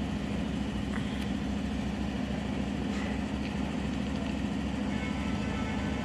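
Steady low mechanical hum with a constant drone-like tone, the kind of background noise made by traffic or a running motor, with no clear bird call over it.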